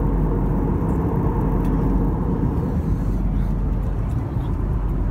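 Steady cabin noise of a jet airliner in flight: engine and airflow noise, deep and even, without change.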